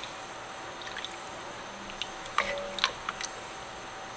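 A wooden spoon stirring thick tomato-and-turkey chili in a pot: a few soft wet squishes and light clicks, mostly between about two and a half and three and a half seconds in, over a low steady hiss.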